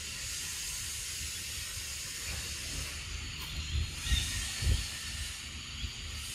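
Steady high hiss of outdoor forest ambience under a low, uneven rumble, with a few soft thumps about four to five seconds in.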